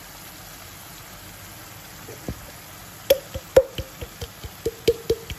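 Chilli sauce simmering in a wok with a low, steady hiss. From about two seconds in comes a quick run of a dozen or so sharp clicks and glugs as tomato sauce is poured out of a bottle into the pan.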